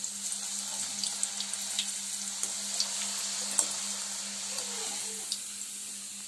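Potato strips frying in hot oil in a steel kadhai: a steady sizzling hiss with scattered crackling pops, the first light fry of homemade French fries. A steady low hum runs underneath.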